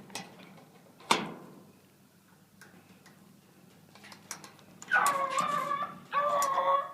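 A sharp knock about a second in, then from about five seconds in a bluetick coonhound baying in long, drawn-out, steady-pitched calls, two in quick succession.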